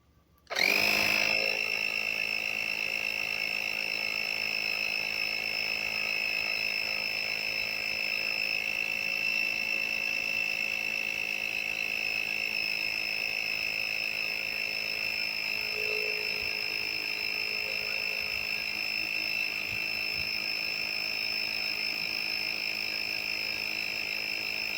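AstroAI 12 V portable tyre inflator switching on about half a second in and running steadily: the electric motor and pump drone with a high steady whine over it.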